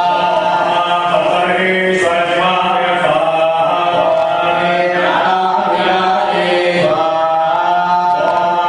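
Priests chanting Sanskrit mantras together for a temple consecration fire ritual, on a steady, held pitch.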